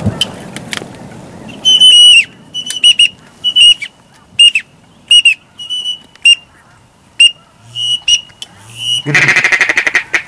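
Duck calls blown in a hunting blind: a string of short, loud high whistles, each dropping in pitch at its end, then near the end a fast run of quacking notes.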